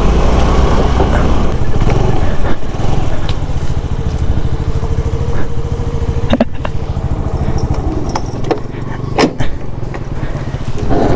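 Scooter engine running as it is ridden along, with a low rumble of wind and road noise. A steady whine rises over it for a couple of seconds midway, and a few sharp knocks come near the middle and end.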